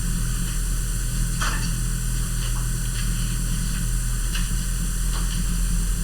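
Hunter Builder Plus ceiling fan running on high speed: a steady low hum with a few faint scattered ticks.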